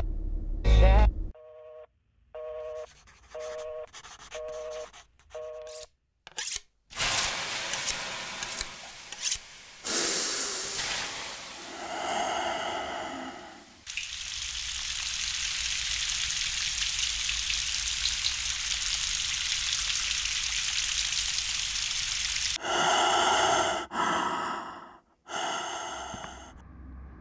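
Cut-up sound collage: a short tone stutters on and off in quick repeats, then a drawn-out breathy vocal sound, a long steady hiss, and a few choppy breathy vocal bursts near the end.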